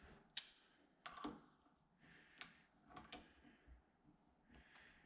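Faint, scattered clicks and light knocks from a door latch and a mortise jig's depth stop being handled and set, about half a dozen sharp clicks over a few seconds, the loudest about half a second in.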